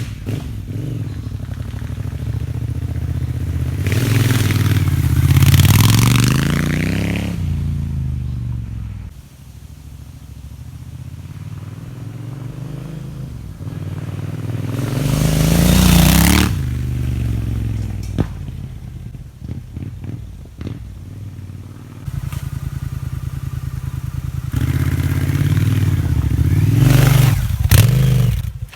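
Triumph Scrambler's parallel-twin engine running through an Arrow 2-into-1 exhaust with a larger-diameter stainless steel baffle, idling and revved three times, each rev rising and falling back to idle. A few sharp pops follow the second rev as it drops back to idle.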